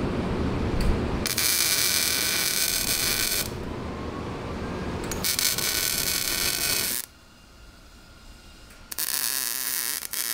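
MIG (wire-feed) welder laying short welds on steel go-kart motor mounts: the arc's steady crackle starts about a second in and comes in three runs, with brief pauses between them.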